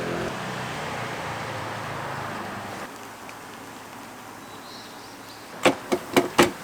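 A passing vehicle's noise fading out over the first three seconds, then about five sharp knocks in quick succession near the end.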